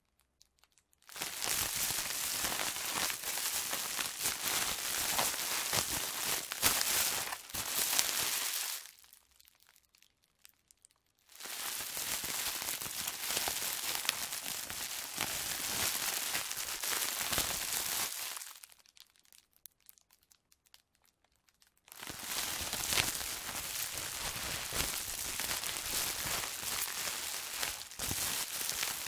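Plastic bag being handled and moved, a dense crinkling rustle in three long takes of several seconds each, separated by short pauses.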